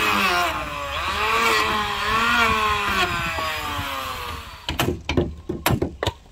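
A motorised woodworking power tool runs under load, its pitch dipping and rising as it cuts, and stops about two-thirds of the way in. A quick run of sharp hammer blows on wood follows.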